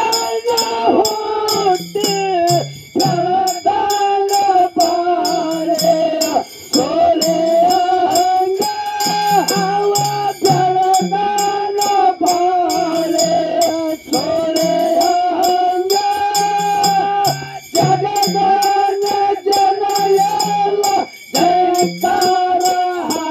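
Kannada dollina pada folk song: a voice holds long sung notes over steady, evenly struck percussion that jingles and rattles, with a repeating low accompaniment underneath.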